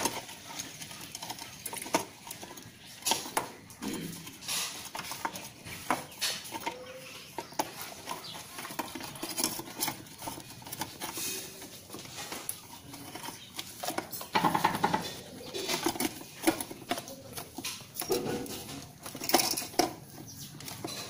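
Irregular clicks, taps and light knocks of a TVS XL moped's metal headlight rim and lens unit being handled and pressed into its headlamp shell.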